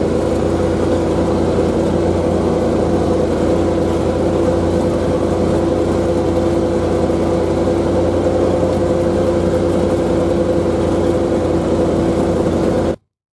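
Vehicle engine running at a steady pitch as it drives over a snow-covered track, cutting off suddenly near the end.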